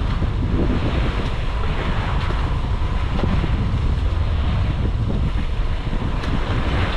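Steady wind rumbling on the microphone, with sea water washing against the side of a small fishing boat.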